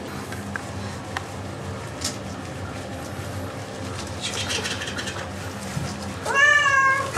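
Domestic cat meowing once near the end, a call of about a second that rises in pitch and then holds, given while it is being lathered in a bath, which the cat plainly dislikes. Before it comes the soft rubbing and squishing of hands working soapy lather into wet fur.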